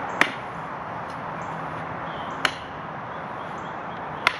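Three sharp chops, about two seconds apart, of a heavy chopper knife with a 13-inch blade striking a wooden board laid across a stump.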